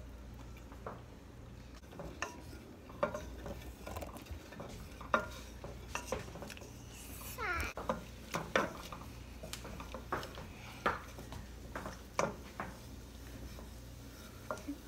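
Long wooden spoon stirring chopped garlic in olive oil in a stainless steel pot, knocking and scraping against the metal in irregular clicks.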